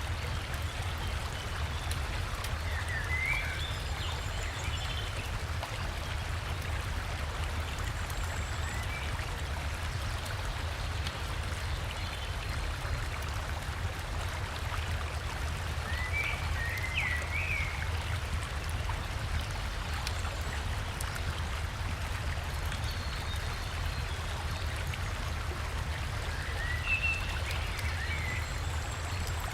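Steady rush of river water and a small waterfall, with a deep low rumble beneath the hiss. A bird chirps in short phrases three times: a few seconds in, about halfway, and near the end.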